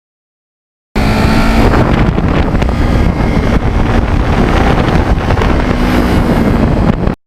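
Kawasaki Ninja 650R's parallel-twin engine running on the move, with wind buffeting the microphone; the sound starts abruptly about a second in and cuts off shortly before the end.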